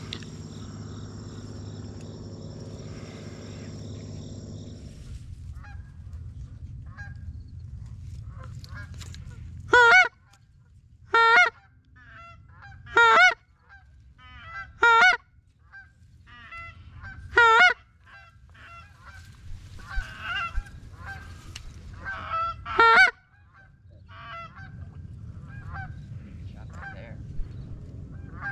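Goose honks: a string of loud, Canada-goose style honks, about six strong ones spread between roughly ten and twenty-three seconds in, with fainter honking between them.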